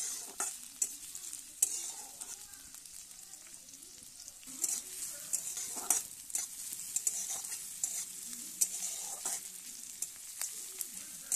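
Sliced onions and dried red chillies sizzling in hot oil in a metal kadai, being fried toward brown, while a metal spatula stirs and scrapes against the pan with sharp clicks every so often.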